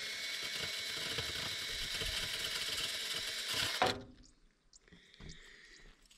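Cordless drill spinning a threaded rod with a non-metal sweeping brush inside a stainless double-wall wood-stove flue: a steady motor whine that stops abruptly about four seconds in.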